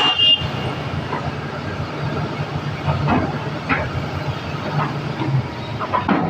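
Excavator's diesel engine running steadily, with a few scattered metallic clanks and squeaks from the machine working.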